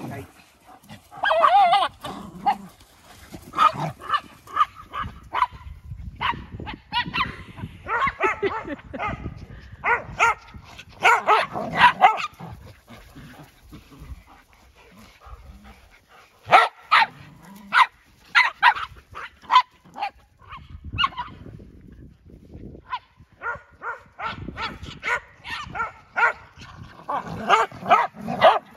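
Several dogs barking and yipping as they play together, in quick runs of short barks with brief lulls between them.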